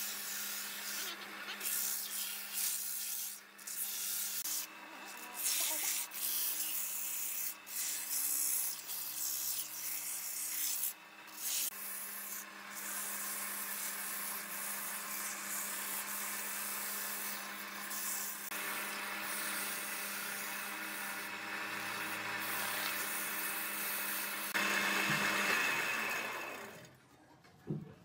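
Sandpaper rubbing against a wooden vase blank spinning on a small wood lathe, with a steady hum from the lathe beneath. The rough hiss comes and goes in short strokes for the first dozen seconds, then holds steady. It grows louder near the end before cutting off.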